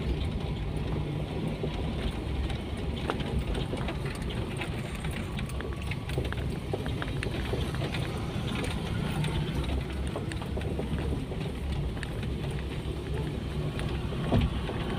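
Toyota Kijang heard from inside the cabin, its engine running steadily as it drives along a rough dirt track, with tyre noise and small rattles throughout. A sharper knock, like a jolt over a bump, comes near the end.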